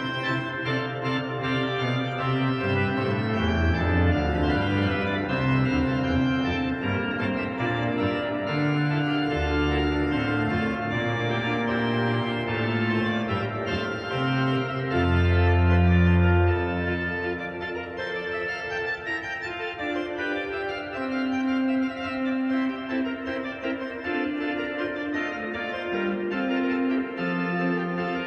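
Pipe organ playing a Baroque toccata: held low pedal notes under moving upper voices. The loudest moment is a deep pedal note about halfway through.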